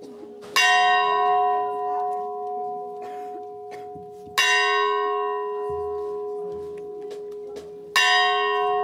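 A bell tolling: three strokes about three and a half seconds apart, each ringing on and fading slowly over a steady hum.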